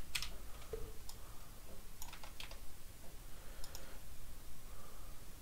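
Computer keyboard keys clicking in a few irregular clusters of strokes, separated by short gaps, as code is typed.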